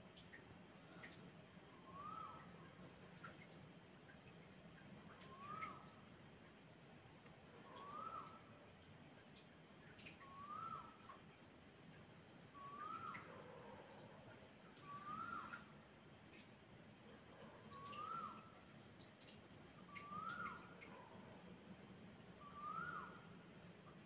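Faint night ambience: an unseen animal gives a short rising-then-falling call about every two and a half seconds, over a steady high-pitched insect trill.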